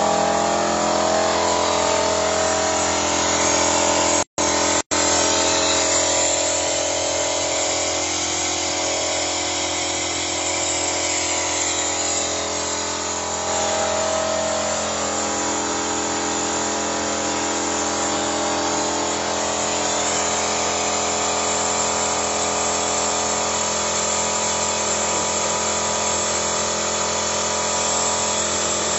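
A machine runs steadily throughout, a constant motor hum made of several steady tones. The sound cuts out completely twice for an instant, a little after four seconds in.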